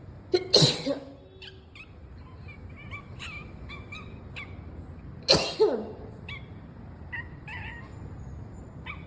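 A person sneezing twice, about five seconds apart, each a sharp double burst, with a cat's short faint calls in between.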